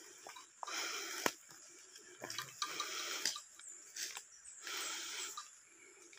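Footsteps crunching and rustling through dry leaf litter and fallen palm fronds, one crunch about every two seconds, with a sharp snap like a twig breaking just after a second in.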